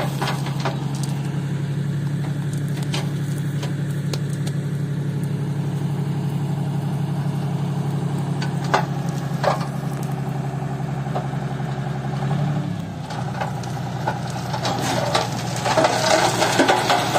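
John Deere 5050D tractor's diesel engine running steadily while its hydraulics raise the loaded tipping trailer. About twelve seconds in, the engine note rises briefly and then drops away. Near the end, soil and gravel slide and rattle out of the tipped trailer bed.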